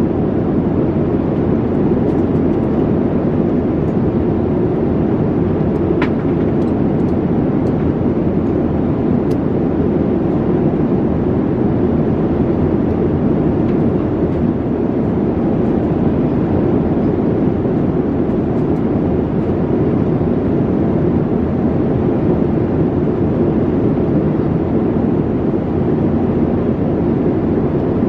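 Steady cabin noise inside a Boeing 787-9 airliner: an even, low rush of air and engine noise that holds unchanged, with a faint click about six seconds in.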